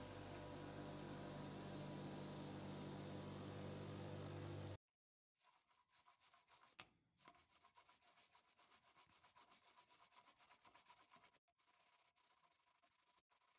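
An electric motor driving a wire wheel runs with a steady hum that cuts off abruptly about five seconds in. It is followed by faint, rapid back-and-forth scraping: a small hand wire brush scrubbing rust from inside the eye of a steel hammer head.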